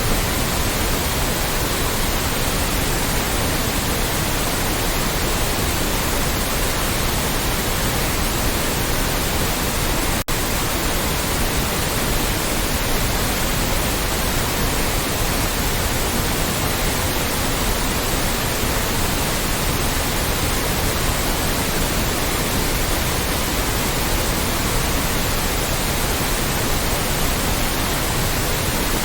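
Loud, steady white noise: an even hiss spread across all pitches, with a split-second dropout about ten seconds in.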